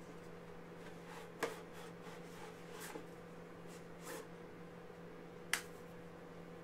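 Hands handling disc-set packaging, cardboard and wooden season cases, giving a few sharp clicks and taps, the sharpest about five and a half seconds in, over a faint steady hum.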